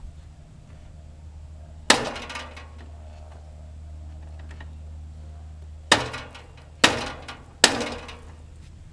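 Hammer striking metal: four sharp blows that each ring briefly, one about two seconds in and three in quicker succession a few seconds later, over a steady low hum.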